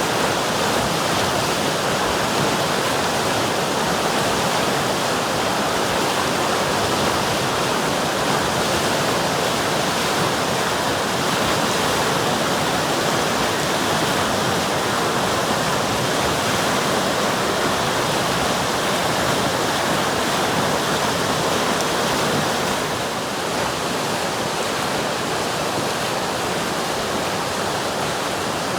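River water rushing and splashing in a steady, dense noise, with a slight drop in level about 23 seconds in.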